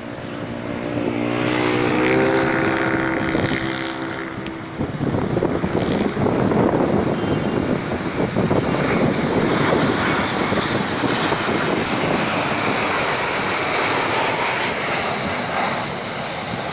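Airbus A320-232 airliner with IAE V2500 turbofan engines on final approach, a steady roar of jet noise that builds as it comes in low overhead. A high fan whine falls gently in pitch near the end.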